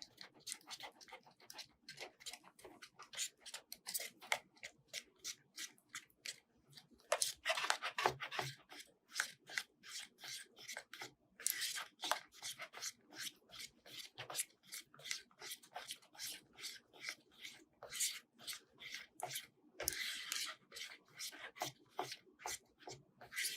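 Plastic spoon stirring and scraping around inside a plastic cup, mixing white glue with a baking soda and contact solution activator as it thickens into slime. A steady run of short scrapes and clicks, a few a second, with a few busier stretches.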